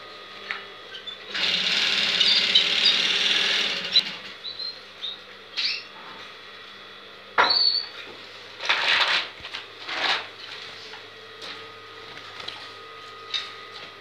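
Several canaries in a cage singing: a loud rapid trill from about one to four seconds in, then scattered short chirps and brief trills.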